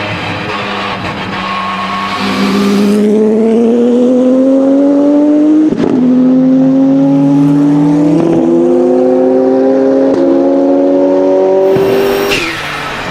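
Porsche 997 GT2 RSR's twin-turbo 3.9-litre flat-six accelerating hard, heard onboard, its note rising steadily with a quick sequential-gearbox upshift about halfway through. Near the end the driver lifts off, and a short hiss and falling whistle from the turbos and blow-off valve follow.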